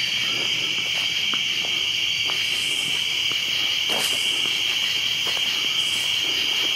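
A steady chorus of night insects, crickets, chirring in one high band. A few brief snaps and crunches from footsteps on the path are scattered over it.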